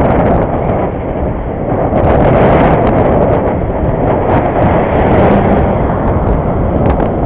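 Steady loud rumble of wind buffeting the camera microphone on a moving bicycle, mixed with road noise, dipping briefly about a second in.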